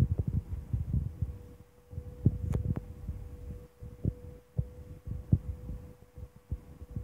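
Airbus A320 cabin noise during the descent: a steady hum with irregular low thumps and rumbling, and a brief higher whine about two and a half seconds in.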